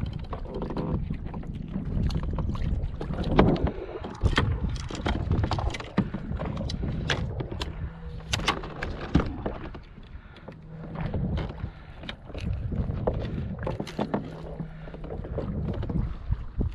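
Repeated clicks and knocks as a caught rockfish in lip grips and fishing gear are handled aboard a plastic fishing kayak, over a low rumble of wind and water against the hull.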